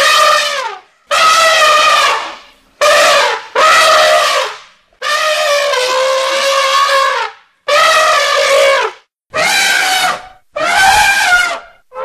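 Elephant trumpeting: a run of about eight loud pitched calls, each about a second long, with one held longer around the middle.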